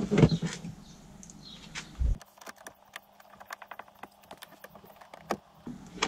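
A dull knock about two seconds in, then a run of light, irregular clicks and ticks for about three seconds as a small screw is fitted by hand into the plastic door card of a VW T4.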